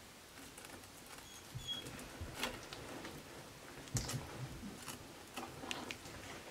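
Fillet knife cutting along a northern pike's backbone on a cutting board: faint scattered clicks and crackles as the blade works past the bones, the loudest about four seconds in. A brief faint high squeak comes about one and a half seconds in.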